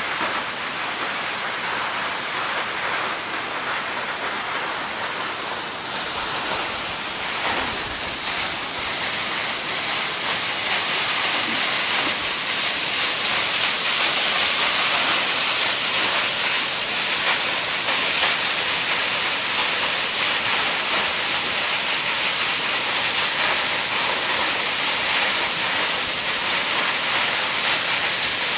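Waterfall: a steady rushing hiss of falling water, growing a little louder after about ten seconds.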